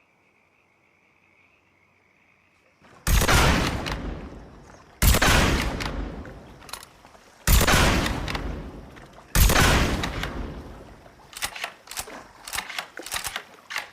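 Sniper rifle gunshot sound effect: four loud shots about two seconds apart starting about three seconds in, each with a long fading tail, followed by a quick run of quieter sharp clicks and knocks.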